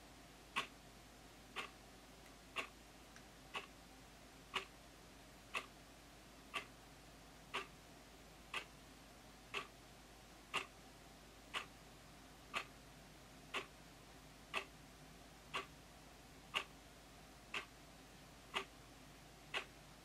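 Battery quartz wall clock ticking, a sharp click once a second as the second hand steps.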